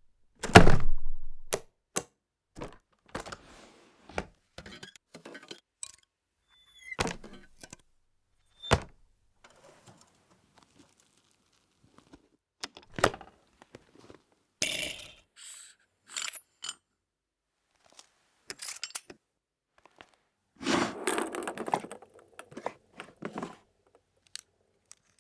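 Foley sound effects for a toy being repaired: a string of separate clicks, knocks and thunks from small tools and objects being handled, the loudest a thunk near the start. There are a couple of longer rubbing or scraping passages, one about halfway through and one near the end.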